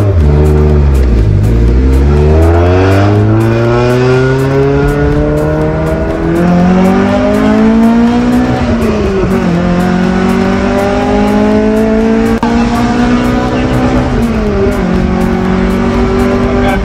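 VAZ 2110's bored-out 1.8-litre 16-valve engine on individual throttle bodies, with a 4-2-1 straight-through exhaust, heard from inside the cabin under hard acceleration. The revs dip about a second in, then climb steadily, fall sharply at a gear change about 9 seconds in, climb again and fall at a second shift about 14 seconds in, then hold steady.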